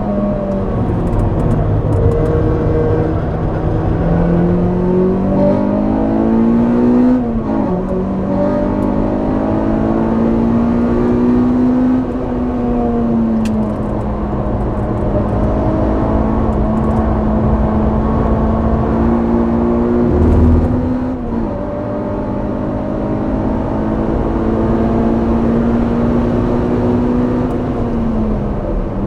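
Honda Civic Type R EP3's four-cylinder i-VTEC engine running hard on track, heard at the exhaust: the engine note climbs steadily in pitch and drops sharply at upshifts about seven and twenty-one seconds in, falling away again near the end.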